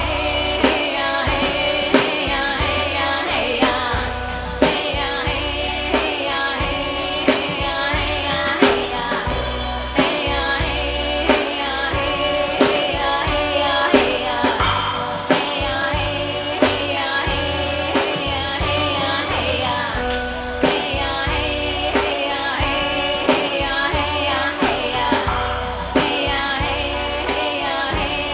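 A song with singing over a steady drum beat.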